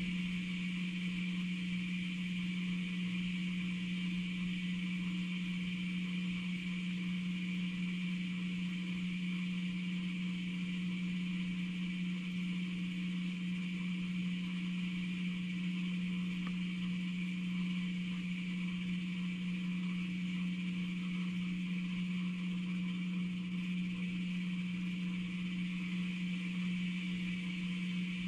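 A steady low hum with a fainter high hiss above it, unchanging throughout.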